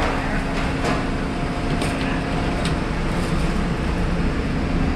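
Steady hum of commercial kitchen exhaust-hood and convection-oven fans running, with a few light metal clicks of sheet pans on the oven racks.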